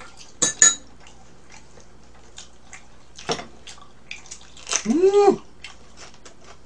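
Chopsticks clicking against dishes at a table: two sharp clicks near the start and another about three seconds in. About five seconds in comes a short hummed 'mmm' that rises and falls in pitch.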